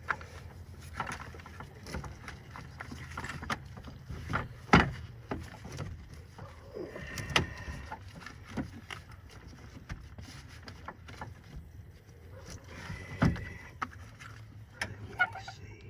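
Clunks, knocks and scrapes of a heavy truck battery being worked loose and lifted out of its place in the engine bay, with two louder knocks, one about five seconds in and one about thirteen seconds in.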